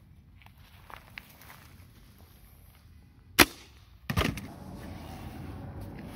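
Assaulter Deluxe mechanical slingshot rifle: a few light clicks as it is cocked, then a single sharp snap as it fires about three and a half seconds in, followed under a second later by a heavier knock.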